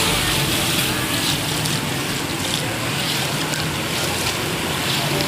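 Steady rush of water with a faint engine hum underneath: a vehicle moving through rainwater standing on a flooded street.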